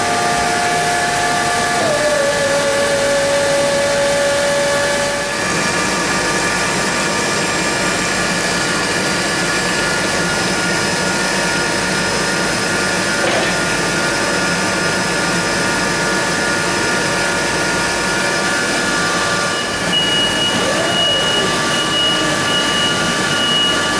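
Boss JE13 battery-electric forklift running its electric motors: a steady whine with hiss. One tone drops in pitch about two seconds in and stops at about five seconds, as the mast is worked, and a higher whine joins near the end as the truck drives.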